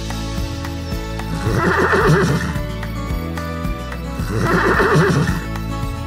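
A horse whinnying twice, about three seconds apart, over background music. Each whinny is a quavering call lasting just under a second.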